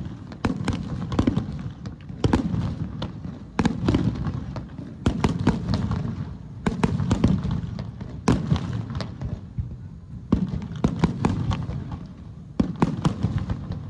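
Aerial firework shells bursting in quick succession: sharp bangs, several a second at times, each followed by a low rolling rumble.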